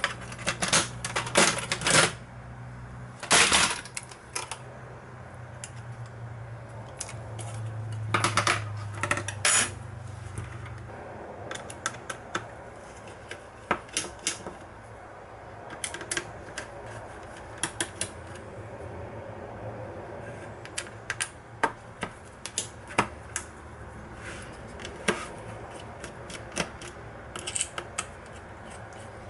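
Irregular small clicks and taps of hard plastic and metal laptop parts being handled and worked on, with a few louder clattering clusters in the first ten seconds and sparser single clicks after that. A low steady hum runs underneath for the first eleven seconds or so.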